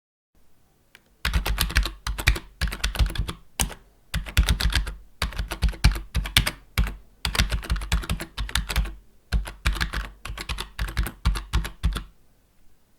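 Computer keyboard typing: fast runs of keystroke clicks broken by short pauses, starting about a second in and stopping about a second before the end.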